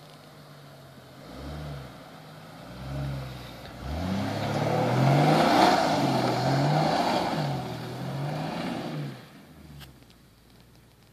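Chevrolet Trailblazer's engine revving up and down again and again as it is driven off road, with a loud rushing noise in the middle. The sound falls away near the end.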